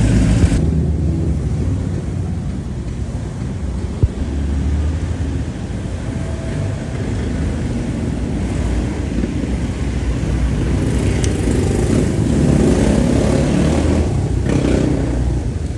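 Steady low rumble of road vehicles, with a single sharp click about four seconds in.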